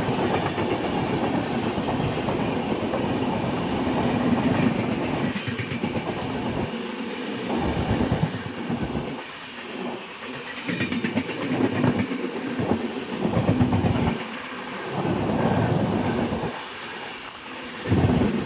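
Indian Railways passenger train passing at speed. The coaches make a steady rumble at first, then from about five seconds in the wheels clatter over the rail joints in repeated groups.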